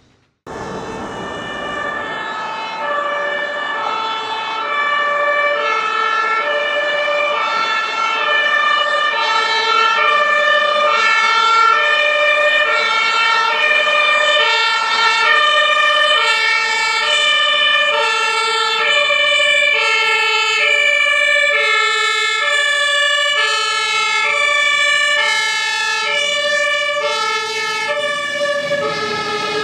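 Pneumatic two-tone fire-truck horn (German compressed-air Martinshorn) on a Mercedes-Benz Econic aerial platform sounding continuously, alternating between a low and a high tone about every three-quarters of a second. It starts about half a second in.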